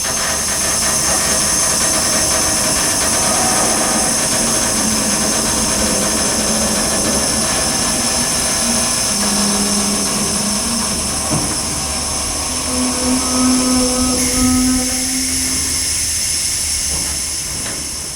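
A train running past with a steady high-pitched squeal from its wheels, fading away near the end.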